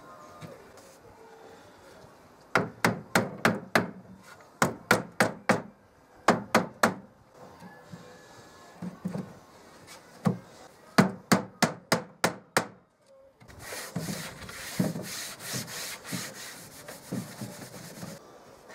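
Bursts of quick knocks on a sapele-veneered particleboard side panel of a chest of drawers, three to six blows about a quarter second apart, as the freshly glued panels are tapped into line. A steady rubbing noise fills the last few seconds.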